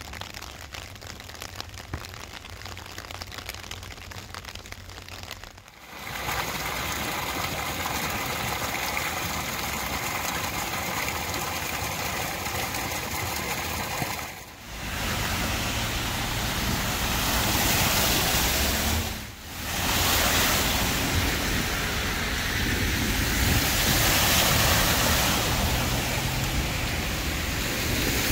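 Storm water gushing from a drain outfall into the sea, a steady rush of water. Later comes steady wet-weather noise of water and passing traffic on a flooded road.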